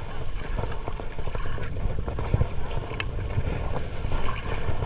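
Water sloshing against the hull of a small boat drifting at sea, with wind rumbling on the microphone. A single sharp click sounds about three seconds in.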